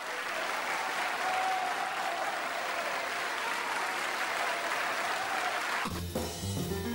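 Concert audience applauding, an even clatter of clapping that cuts off abruptly about six seconds in. A jazz combo with upright bass and drums then starts playing.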